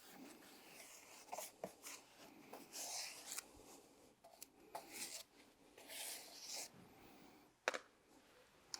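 Faint rubbing and light clicks of a motorcycle tyre and tools being handled, with one sharper click or knock about three-quarters of the way through.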